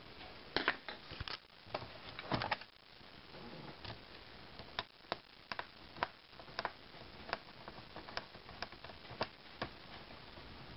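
Sharp, faint plastic clicks and taps from the hinge-cover trim strip of a Dell Inspiron 1525 laptop being pressed back into place by hand: a quick cluster in the first couple of seconds, then single clicks about every half second.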